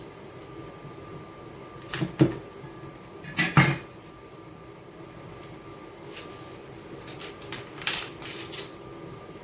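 Kitchen handling sounds: a few sharp knocks and clatters of cookware or utensils being set down and moved, two close together about two seconds in and another a second or so later, then a run of lighter clicks near the end, over a faint steady hum.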